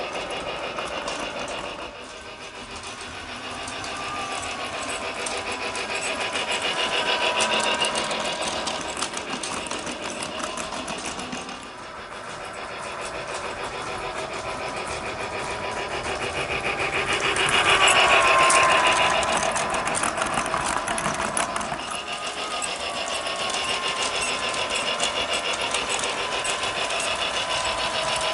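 Lionel Hogwarts Express G-scale toy train running on its track: a small motor and gear whine with rapid clicking from the wheels. It swells and fades about every ten seconds as the train comes round past and goes away.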